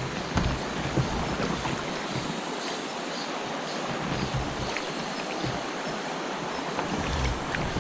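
Steady rush of moving water, with gusts of wind buffeting the microphone in low thumps.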